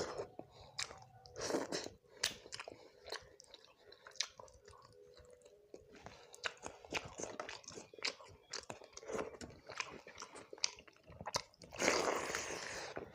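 Close-up eating sounds: chewing with frequent sharp crunches, typical of biting into crisp fried fish, and a louder, longer rushing sound near the end.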